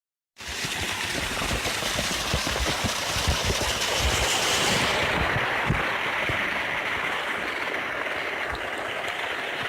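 Rushing water of a small waterfall, a dense hiss whose brightest top end drops away about halfway through, with irregular low thumps underneath.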